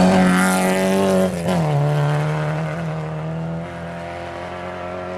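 Ford Escort Mk2 rally car's engine at full throttle as it passes close by. About a second and a half in there is a short break and the note drops a little, as at an upshift, then it holds steady while fading as the car pulls away.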